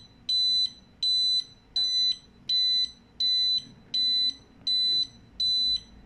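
Conventional fire alarm control panel's internal buzzer beeping its fault warning, a high-pitched pulsed tone about one beep a second. The fault is that the zone and sounder circuits have no end-of-line resistors fitted, so every zone and the sounder read as faulted.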